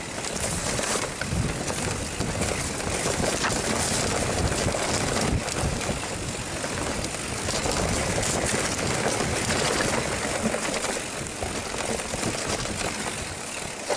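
Mountain bike riding fast down a rough singletrack: a steady rush of noise with frequent knocks and rattles from the bike over the rough ground.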